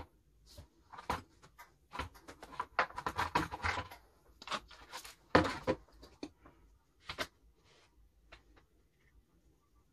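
Irregular taps, clicks and rustles of watercolour materials being handled on a wooden table (brushes, a paint box, a palette plate and paper), busiest in the first seven seconds with one louder knock about five seconds in, then only a few faint ticks.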